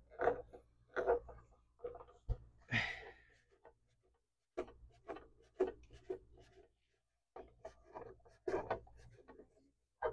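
Hand work on the seized, rusted mechanism of an old miter saw: a run of short, irregular knocks and scrapes, pausing briefly about four and seven seconds in, with a short hiss about three seconds in.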